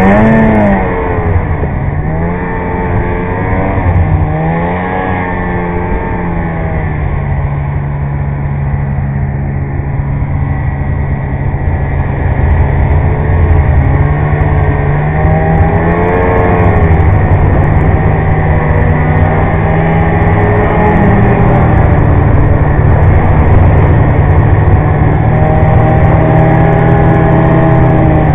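Polaris snowmobile engine running under throttle, heard from the rider's seat. The engine's pitch rises and falls several times as the throttle is worked, with a long steady stretch in the middle.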